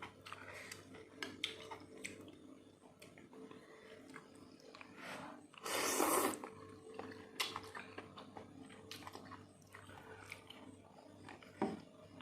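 A person eating seblak up close: soft chewing, lip smacks and mouth clicks, with one louder, longer noisy sound about six seconds in.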